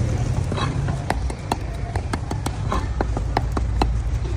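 Cleaver chopping small fish on a thick round wooden chopping block: a run of sharp knocks, about four a second, over a steady low rumble.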